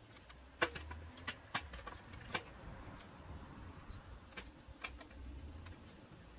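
Scattered sharp clicks and knocks of a wooden board being handled and clamped on folding workbenches, loudest in the first few seconds, over a low rumble.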